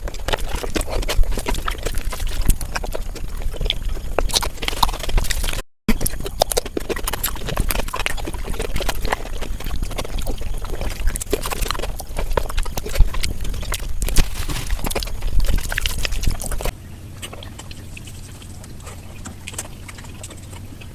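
Sped-up mukbang eating sounds: a dense, rapid patter of wet chewing and slurping clicks from someone eating curry. It drops out for a moment about six seconds in, then turns quieter and sparser near the end.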